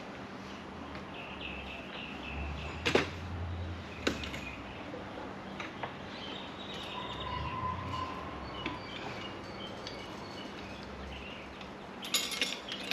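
Low background noise with two sharp knocks about three and four seconds in and a short clatter near the end, with faint bird chirps in the background.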